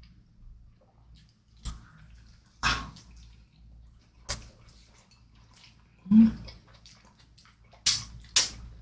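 Close-miked wet eating sounds: chewing and smacking of pizza in about six short separate bursts.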